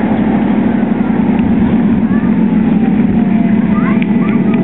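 Engine of a ride-on miniature Intercity 125 locomotive running steadily with a fast, even throb. A faint thin whine joins in about halfway through.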